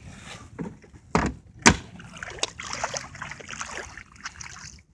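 Jet ski hood being closed: two heavy thumps a little over a second in, then a few seconds of clattering and scraping with small clicks.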